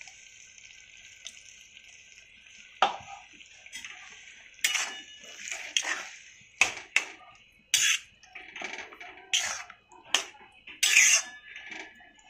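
A faint sizzle in the kadhai fades over the first few seconds, then a metal spatula stirs the wet bean curry, knocking and scraping against the iron kadhai about once a second, around ten knocks.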